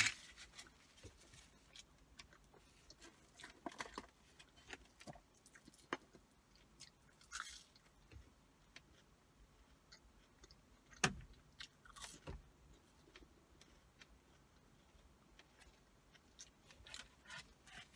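Close-up chewing of fried food, soft mouth and crunching sounds scattered through the quiet, with a couple of sharper clicks about two-thirds of the way through.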